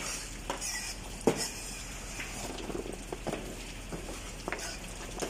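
Kitchen knife tapping and scraping on a cutting board as sliced carrots are pushed and gathered: irregular light knocks, with one sharper knock about a second in.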